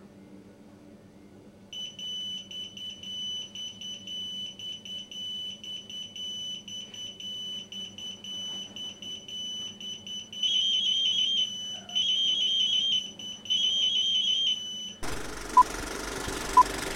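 An on-call pager's alarm going off unanswered: a steady high beeping tone that pulses on and on, then three louder bursts of rapid chirping. It cuts to an old film-countdown leader: hiss with two short beeps about a second apart.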